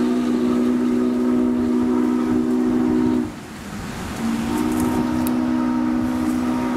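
Steam chime whistle of Norfolk & Western J-class 4-8-4 No. 611 blowing a long blast, a chord of several steady tones, that breaks off a little over three seconds in, then sounding again about a second later.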